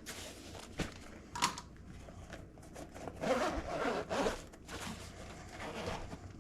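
Zipper on a soft drone carrying case being pulled open in several short strokes, with a few small clicks of handling.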